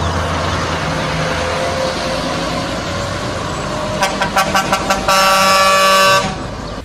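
Heavy trucks running along the road, then a truck air horn sounding a quick run of short toots about four seconds in, followed by one long blast of about a second.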